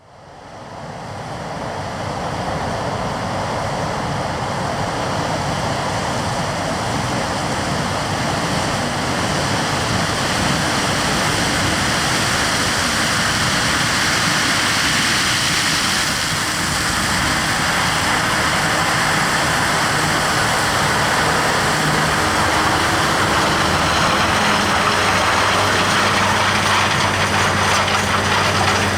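Heavy farm machinery running in a maize harvest: a dense, steady mechanical noise that fades in over the first two seconds, with a steady engine hum standing out more clearly near the end.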